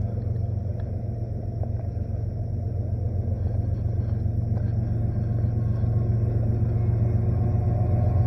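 Steady low rumble with no clear tones, growing gradually louder toward the end.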